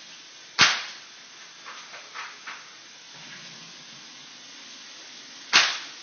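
Well MB-01 spring-powered bolt-action airsoft sniper rifle firing twice, a sharp snap about five seconds apart. Between the shots comes a quick run of four light clicks as the bolt is worked to cock the rifle and chamber the next BB.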